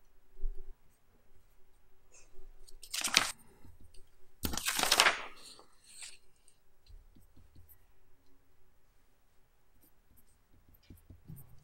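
A soft knock, then sheets of paper rustling loudly twice as the exam paper is handled and its page turned, followed by faint scratching and ticking of a pen writing on paper.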